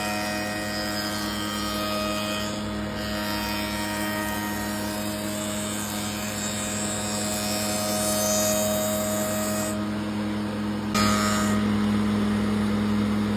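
Electric woodworking power tool running steadily with a constant motor hum; it gets louder about eleven seconds in.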